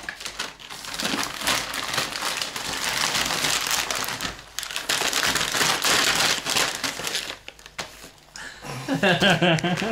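Plastic dog-treat pouches crinkling and rustling as they are handled in heaps, in two long stretches. A voice is heard briefly near the end.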